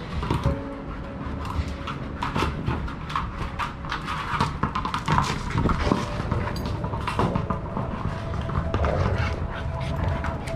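Large shepherd dogs play-fighting at close range: low growling and scuffling paws on brick, with many scattered clicks and knocks.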